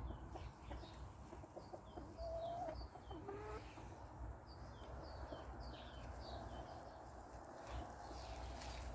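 White bantam Silkie chickens clucking and calling, with a couple of drawn-out calls about two to three and a half seconds in. Short, high chirps repeat throughout.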